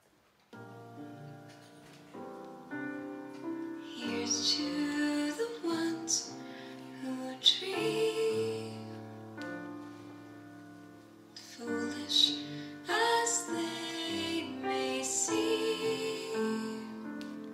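Slow, soft recorded music starts about half a second in: held piano-like notes with a woman singing.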